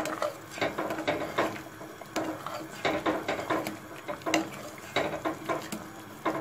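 A metal spoon stirring sago pearl porridge in a pot, scraping and clinking against the pot's sides and bottom in quick, irregular strokes, several a second. The porridge is being stirred so the sugar just added dissolves.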